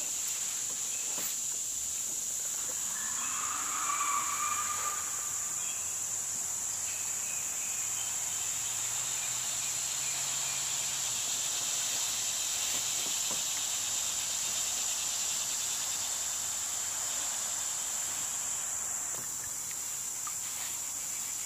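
Cicadas in the trees giving one steady, high-pitched buzz. A brief, fainter, lower call rises over it about three to five seconds in.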